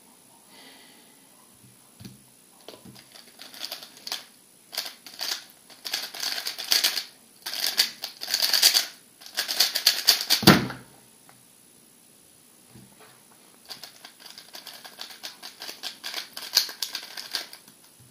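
MoYu RS3 M 2020 3x3 speedcube turned very fast, a dense plastic clatter of layer turns with one heavy thump about ten and a half seconds in, as the hands come down on the timer. After a short pause it clatters again, more lightly.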